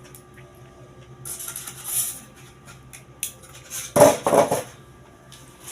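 The grinder's bowl and its thermocol packing being handled during unboxing: packing rustles for about a second, then the bowl clatters loudly about four seconds in.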